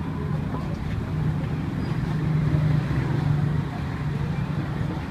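Steady low engine hum of street traffic, growing a little louder in the middle and easing off near the end.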